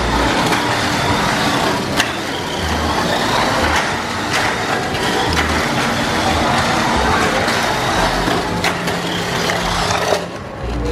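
Tamiya Mini 4WD cars running laps on a plastic slot track: a dense, steady clatter of small motors, wheels and rollers against the track walls, with a few sharp knocks. It dies down shortly before the end as the cars are caught.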